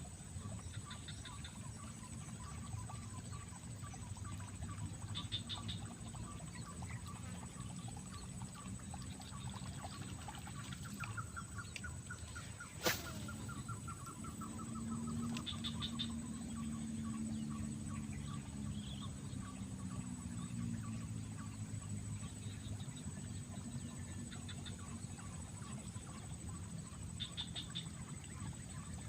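Birds calling: short repeated chirps and a longer call that rises and falls, over a steady low rumble, with a single sharp click about thirteen seconds in.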